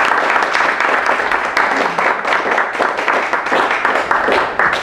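Audience applauding steadily, thinning to a few scattered claps near the end.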